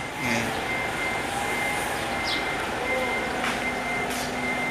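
Hino 700 tractor unit's diesel engine running as the truck manoeuvres slowly with a container trailer, with a high electronic warning beep repeating steadily over it.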